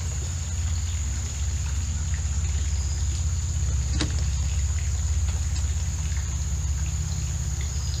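Creek water running and trickling steadily, with a constant high-pitched whine above it and a single sharp click about halfway through.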